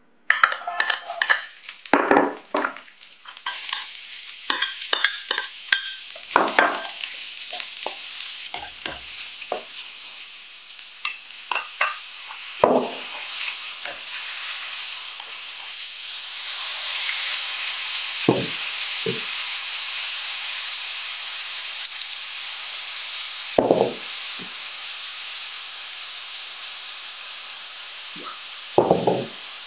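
Lamb chunks and sliced onion sizzling in hot oil in a black metal wok, with a steady hiss that grows louder about halfway through. A wok ladle clanks and scrapes against the pan as the meat is stir-fried, with many knocks in the first half and a few later.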